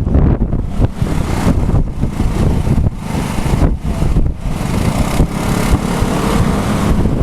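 Strong typhoon wind gusting and buffeting the microphone in irregular surges, over the running of road traffic, likely scooters and motorcycles.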